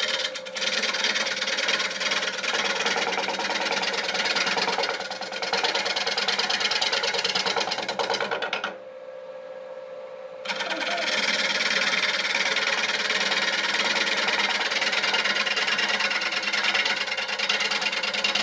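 A bowl gouge cutting a spinning wooden bowl blank on a wood lathe: a loud, rapid, chattering rasp as the tool bounces from high spot to high spot on the still-rough blank. About nine seconds in the cut stops for a couple of seconds, leaving only the lathe's steady hum, then the cutting starts again.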